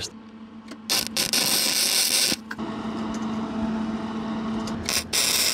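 Stick (arc) welding on a steel sculpture: the arc crackles and hisses in spurts with short breaks, starting about a second in, over a steady low hum.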